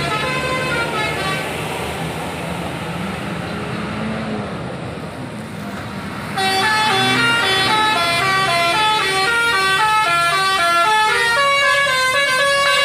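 Tourist buses' multi-tone musical horns (telolet horns) playing quick stepping tunes over the low running of bus engines. About six seconds in, a nearer, louder horn takes over and keeps playing.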